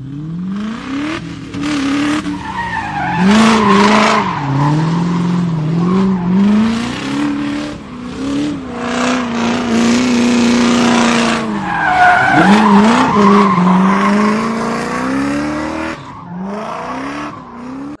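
Car engine sound effect revving, its pitch rising and falling over and over, with a hiss behind it; it starts and stops abruptly.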